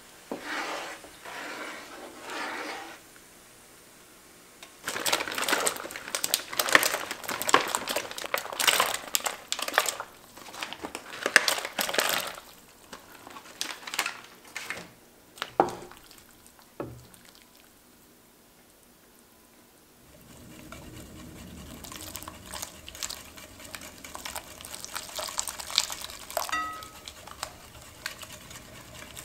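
Kitchen cooking sounds: loud crinkling and rustling in the first half, a few sharp clicks, then a wire whisk beating eggs and cheese in a glass bowl, with rapid light ticks of the whisk against the glass.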